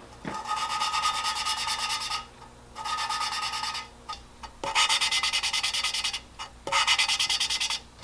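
A valve being lapped by hand into its seat in a 1992 Jeep Wrangler 4.0 inline-six cylinder head: a lapping stick spun back and forth between the palms grinds the valve face against the seat through fine lapping compound. It makes a gritty rasping in four bursts of one to two seconds, each a fast run of back-and-forth strokes, as the compound polishes the pitted seat smooth.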